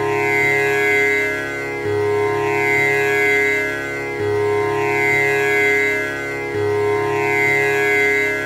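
Tanpura drone: its strings are plucked in a steady repeating cycle that comes round about every two and a half seconds, the sustained notes ringing over one another without a break.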